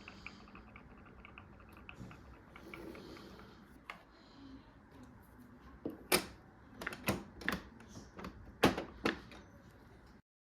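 Hands handling a Canon Pixma G3420 printer and its packaging: a rapid, fine ticking at first, then a run of sharp clicks and knocks about two-thirds of the way in.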